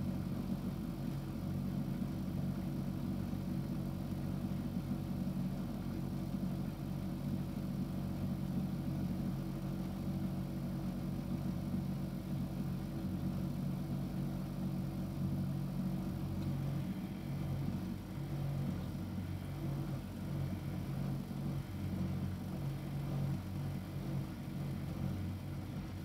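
Miele Novotronic W715 front-loading washing machine running an extra rinse on a double duvet: a steady low mechanical hum that turns more uneven in the last third, as the drum starts turning.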